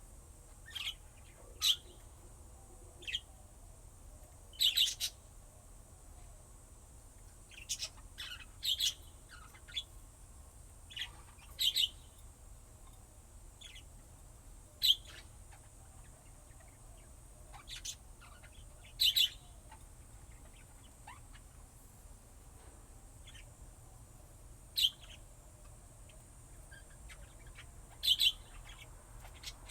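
Lovebirds giving short, sharp, high-pitched chirps at irregular intervals, often two in quick succession, with pauses of a few seconds between.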